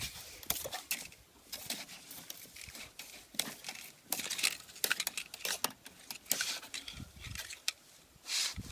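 Irregular scraping, rustling and clicking from a flat steel sewer rod being worked in a clogged drain pipe.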